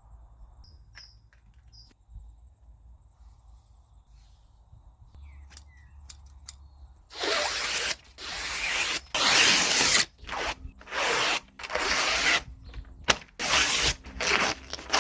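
Repeated harsh rubbing or scraping strokes, each lasting about a second, starting about seven seconds in after a quiet stretch with a few faint chirps.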